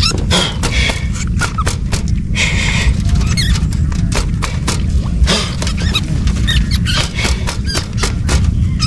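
Rats squeaking in short high chirps amid repeated clicks and knocks of rat traps being handled, over a steady low rumble.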